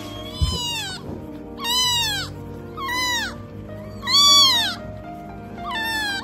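Newborn kitten crying: five high mews about a second apart, each rising then falling in pitch, the fourth the loudest, over quiet background music.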